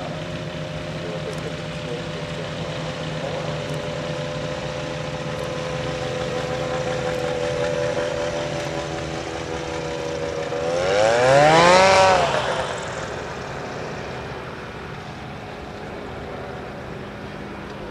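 Kasperwing ultralight's engine and pusher propeller running steadily in low flight. About eleven seconds in, the engine note rises in pitch and falls back as it gets louder, loudest near twelve seconds, then runs quieter as the plane lands and rolls out.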